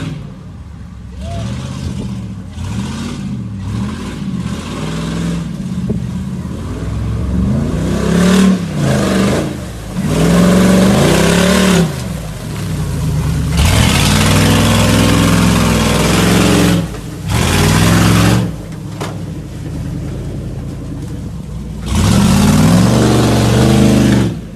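A vehicle engine being revved hard over and over, its pitch climbing and dropping with each throttle push, with several long full-throttle stretches, as when driving off-road.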